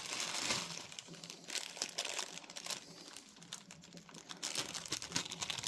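Packaging crinkling and rustling as it is handled, with many small irregular clicks.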